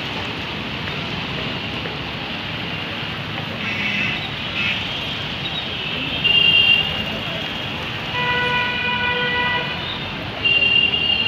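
Busy street traffic with vehicle engines running and several horns honking: short high toots about four and six seconds in, a longer, lower horn blast for about a second and a half around eight seconds in, and another loud high toot near the end.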